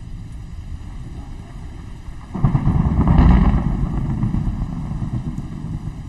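Thunder in a storm recording: a sudden loud crack of thunder about two and a half seconds in, peaking a second later and rolling away slowly over a steady low storm rumble.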